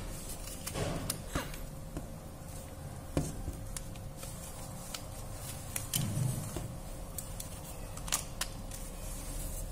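Plastic housing of a Samsung J1 phone clicking as its frame and panels are pressed and snapped together by hand: scattered sharp clicks about a second in, around three seconds and near eight seconds, with a soft thump about six seconds in.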